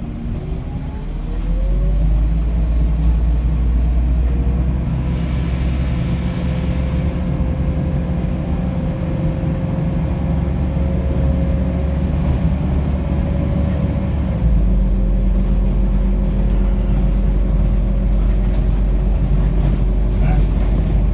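MAZ-105 articulated city bus under way, heard from inside the passenger cabin: engine and drivetrain drone with road noise. About a second in it picks up speed with a rising whine and gets louder; a brief hiss comes a few seconds later, and the low drone shifts about two-thirds of the way through.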